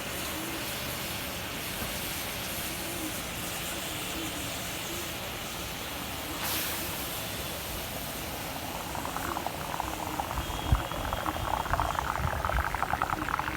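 Quicklime slaking in water: a steady hiss, then from about nine seconds in a fast bubbling, fizzing crackle that builds and grows louder as the reaction heats up.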